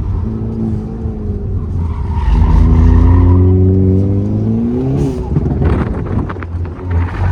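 Race car engine accelerating hard on track, its pitch climbing for about three seconds and peaking about five seconds in, with tyres squealing.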